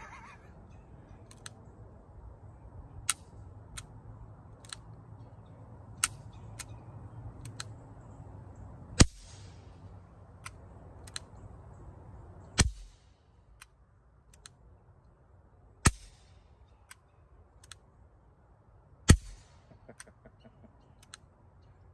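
Nagant 1895 revolver firing through a Form 1 aluminum suppressor: four suppressed shots, about three to four seconds apart in the second half, with fainter sharp clicks in between.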